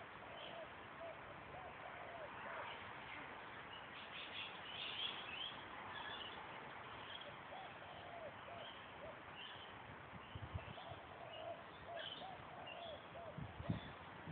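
Faint birds calling and chirping: a short, arched call repeated over and over, with scattered high chirps above it. A few low bumps come in the last third.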